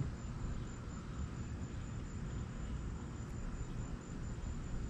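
Steady outdoor background: a low rumble with a faint high chirping that pulses evenly, like an insect, and a small click at the very start.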